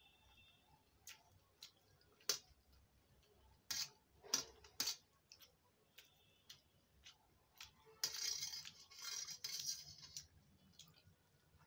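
Metal spoons clinking and scraping on a stainless steel plate of pasta while eating: scattered sharp clicks, with a longer scrape about eight seconds in.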